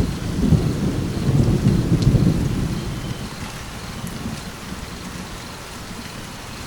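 Steady rain falling, with a low rumble of thunder in the first couple of seconds that fades away, leaving the rain alone.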